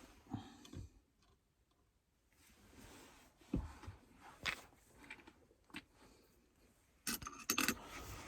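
Small objects being handled and rummaged through: scattered clicks and knocks, with a louder burst of rustling and knocking near the end.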